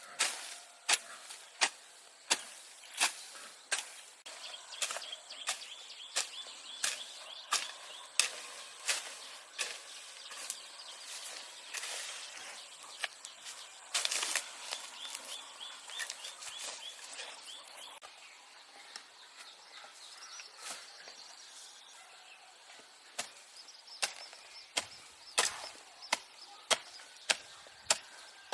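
Repeated sharp chopping strikes, roughly one a second, thinning out in the middle and coming faster again near the end.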